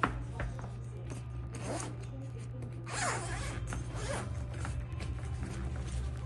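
Zipper being pulled open in several rasping strokes, after a sharp click, over a steady low hum.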